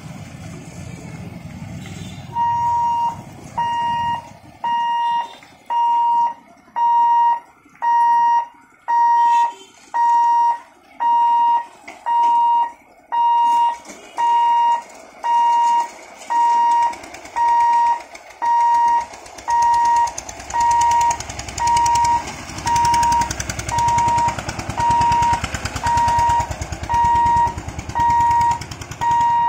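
Level-crossing warning hooter beeping a single steady tone about once a second, each beep about half a second long: the signal that the boom barrier is about to close for an approaching train. Vehicle engines can be heard at first, and a low rumble builds during the second half.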